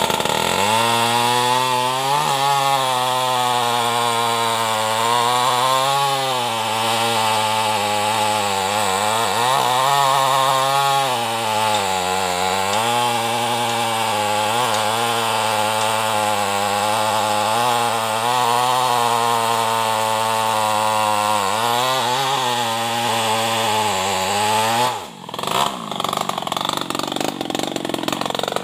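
New West 588 two-stroke chainsaw, tuned up and run without a muffler, cutting into a hardwood trunk under load. Its pitch sags and recovers as the chain bites. About 25 seconds in, the engine note briefly drops away, then runs on rougher.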